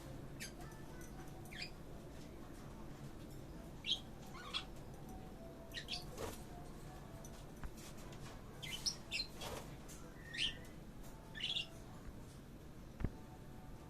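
Pet budgerigar and lovebird giving short, high chirps, about a dozen scattered irregularly, over a low steady hum. A single sharp click near the end.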